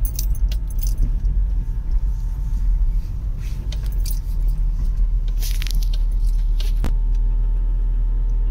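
Car cabin noise while driving slowly: a steady low rumble of engine and tyres with scattered light clicks and rattles. About seven seconds in the rattles stop and it settles into an even hum.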